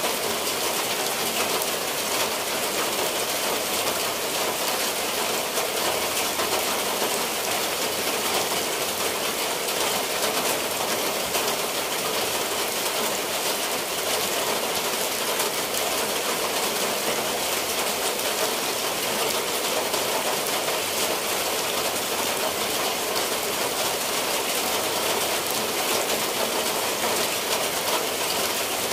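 Steady rain falling on tiled roofs and foliage, an even, unbroken hiss.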